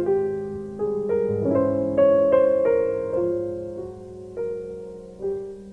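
Piano music: a slow run of single notes and chords, each struck and fading, over a steady low sustained tone.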